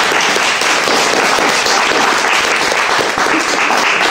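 Audience applauding: dense, steady clapping from a room of people.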